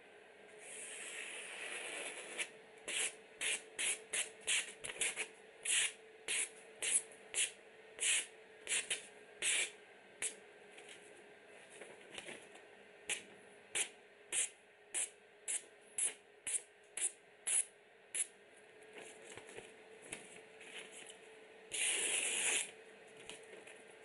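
Paring knife slicing through a printed paper page in test cuts of its edge: a long slicing hiss, then a quick series of short cuts about two a second, and one more long, louder slice near the end. A steady faint hum of a computer fan runs underneath.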